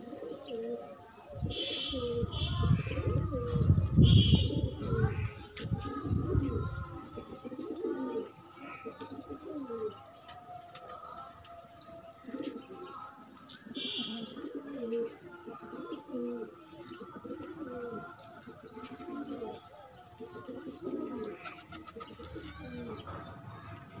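Domestic pigeons cooing over and over in a feeding flock. A louder low rumble runs under the cooing from about a second and a half to seven seconds in.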